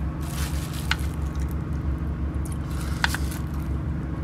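A hand squishing and mixing rice with meat curry on a steel plate, with two short sharper scrapes about one and three seconds in. Under it runs the steady, pulsing low rumble of the moving train.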